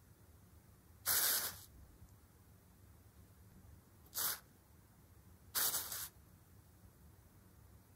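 Thin nylon fabric rustling in three short crisp bursts, about a second in, at four seconds and at five and a half seconds, as the sheet is disturbed and a yarn string is dragged across it.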